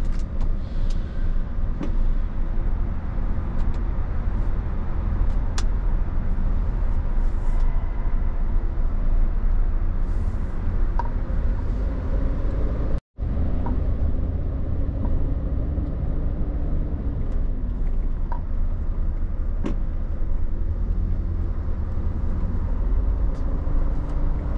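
Steady low engine rumble on a ferry's enclosed vehicle deck, with a few faint clicks and knocks; the sound cuts out for a moment about halfway through.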